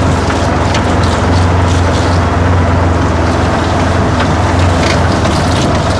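Side-by-side ATV engine running steadily while driving over a dirt track, heard from inside the open cab, with scattered light rattles and knocks.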